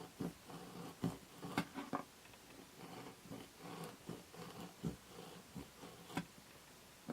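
Irregular light taps and knocks of utensils and dough being handled at a kitchen worktop, a few sharper knocks among softer clicks.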